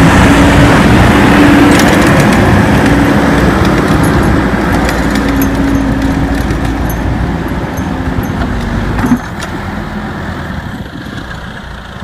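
Caterpillar backhoe loader's diesel engine running close by while it clears snow, a steady engine tone that fades as the machine moves off, with a sudden drop in level about nine seconds in.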